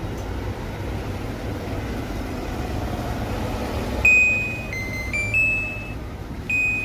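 Washing machine control board's buzzer beeping a short electronic tune of four notes at different pitches, starting about four seconds in, with one more beep near the end, after a steady low hum.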